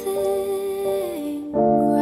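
Soft, slow background music with sustained melodic notes, lullaby-like in feel.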